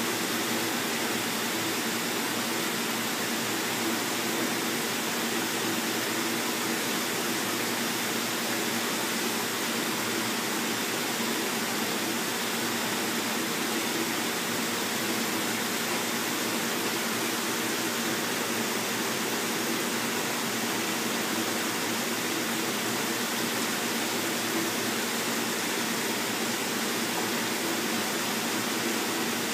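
Steady rushing and splashing of water pouring from a PVC inflow pipe into a round turtle rehab tank.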